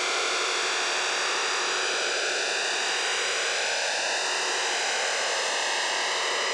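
Steady hiss of a Digital Radio Mondiale (DRM) digital shortwave signal on 7.32 MHz, heard undecoded through a communications receiver in upper sideband. Its tone shifts slightly with slow swishing fades.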